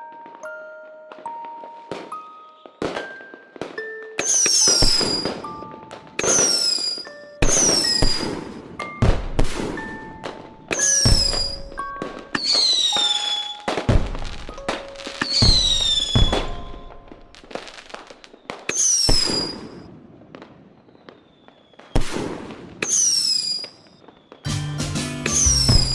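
Firework bursts going off one after another, a sharp bang every one to three seconds, each followed by falling whistle-like tones, over a melody of short notes.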